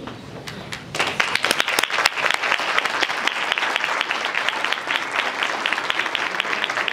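Audience applause: many hands clapping, breaking out about a second in and going on steadily.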